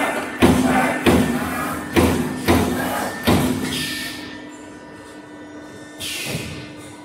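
CNC turret punch press punching sheet steel: five loud, irregularly spaced punch strokes in the first three and a half seconds and a softer one about six seconds in, over a steady machine hum.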